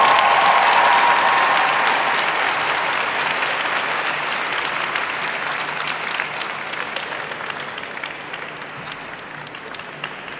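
Arena crowd applauding, a dense spread of hand claps that is loudest at the start and slowly dies away.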